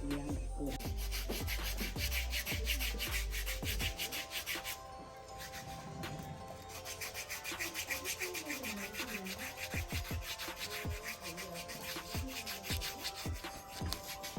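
A pedicure file rubbing in rapid back-and-forth strokes. It pauses briefly about five seconds in, then carries on.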